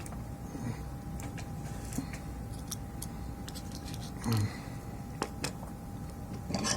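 Small clicks and knocks of controller parts and tools being handled on a workbench, the loudest knock about four seconds in, over a steady faint hum.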